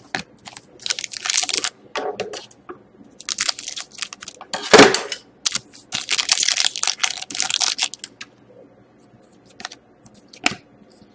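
Trading cards and their packaging being handled: bursts of crinkling and rustling with a sharper crackle about five seconds in, thinning to a few light clicks near the end.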